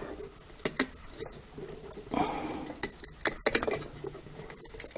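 A soft silicone rubber toy shell being pulled by hand off its glued plastic nightlight base: scattered small clicks and snaps, with a brief rubbing sound about two seconds in.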